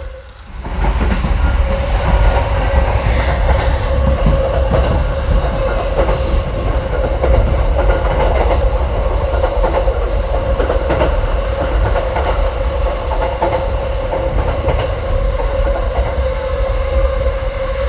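Battery-powered toy train running around a plastic track: a steady electric motor whine with a continuous clatter of its wheels over the track.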